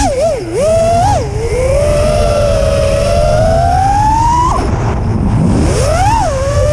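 FPV quadcopter's brushless motors and propellers whining, the pitch rising and falling with the throttle: a slow climb, a sharp drop about four and a half seconds in, then a quick rise back, over low wind and vibration rumble on the onboard camera's microphone.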